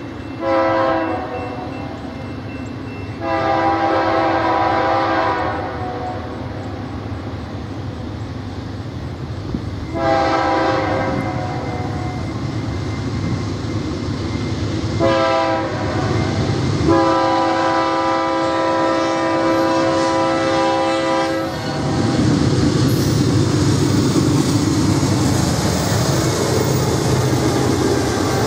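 Air horn of the lead diesel locomotive, a GE AC4400CW, sounding five chord blasts as the train approaches a grade crossing: two short, two longer, and a last one held about four and a half seconds. Then the locomotives pass close by, engines running and wheels rumbling on the rails.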